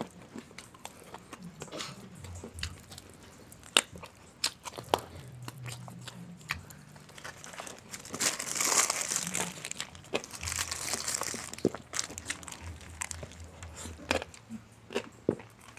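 Close-miked eating: sharp crunches and chewing of breaded fried chicken. A paper food wrapper crinkles loudly twice, around eight and eleven seconds in, as a wrapped rice portion is opened.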